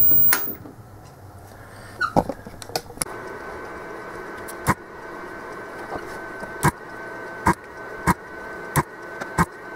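The Philips CM8833 CRT monitor's faulty speaker noise cuts off with a click just after the start. A faint steady high whine follows, with sharp clicks at uneven intervals.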